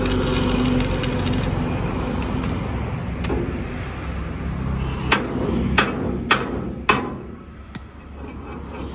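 Arc welding crackling and sputtering on a farm trolley's hitch gear, stopping about a second and a half in. Later, five sharp metallic knocks come at irregular intervals, under a low traffic hum.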